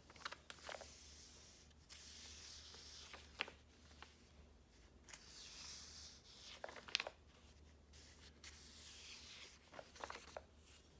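Paper pages of a thick, filled journal being turned by hand, one after another: a soft swish about every three and a half seconds, each page landing with a few crisp flaps and taps.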